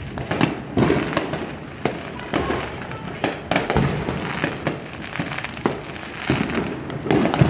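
Many fireworks and firecrackers going off all around: a continuous barrage of irregular bangs and crackles, several a second, with a loud cluster near the end.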